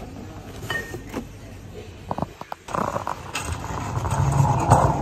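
Metal shopping cart rattling as its wheels roll over concrete, heard from a phone lying in the cart's basket. A few small knocks come first; about halfway through, the rolling rumble starts and grows louder.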